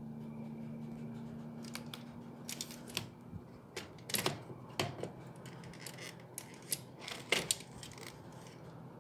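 Low steady hum from an LG ceiling cassette air conditioner's indoor unit; about three seconds in, one tone of the hum drops out and a lower hum carries on. Over the next few seconds there is a scattered run of sharp clicks and ticks, loudest around four and seven seconds in.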